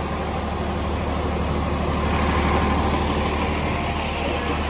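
Large vehicle engine, such as a bus, running steadily with a low hum that swells slightly partway through.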